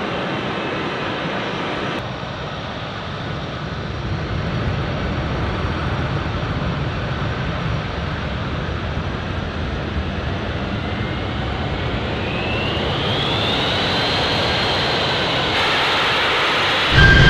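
Turbofan engines of C-17 Globemaster transports running with a steady low rumble, a high whine rising in pitch about two-thirds of the way through as the engines spool up. The sound changes abruptly a few times, cut between clips, ending louder.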